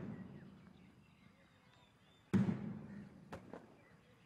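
Slow single beats on a military band's bass drum: the ring of one beat dies away at the start, and another heavy beat lands about two and a half seconds in and rings for about a second.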